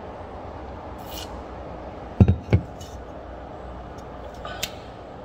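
Two dull thumps in quick succession, with a few light clicks before and after, over a steady low room hum.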